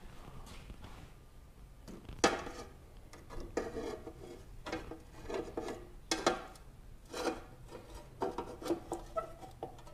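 An aftermarket intake heat shield panel being handled and worked into place in a Mitsubishi Lancer Evolution X engine bay, knocking and scraping against the airbox and surrounding parts. There is a sharp knock about two seconds in, then irregular clatters and rubbing, with a cluster of knocks around six to seven seconds.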